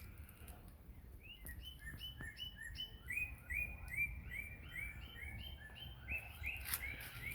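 Birds chirping: a steady run of short, repeated chirps, several a second, starting about a second and a half in.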